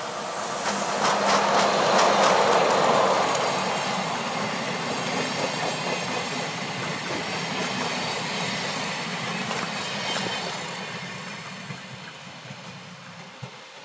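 ÖBB Class 2016 diesel locomotive passing close with its engine running, then its train of coaches rolling by with wheels clicking over rail joints. The sound is loudest about two seconds in and fades as the train pulls away.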